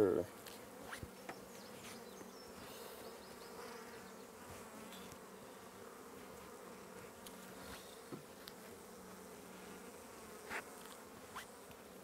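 Honey bees buzzing steadily in a dense cluster on an open hive frame, with a few light clicks and scrapes of a metal hive tool on the frame.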